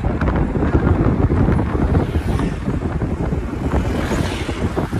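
Wind buffeting a phone microphone held out of a moving car's window, mixed with the car's road noise. An oncoming vehicle rushes past about four seconds in.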